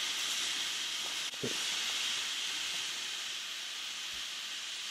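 High-pressure steam hissing steadily from the opened release valve on the lid of a wood-fired EcoClave autoclave, easing slightly. The chamber is being vented down to zero pressure after its sterilisation cycle.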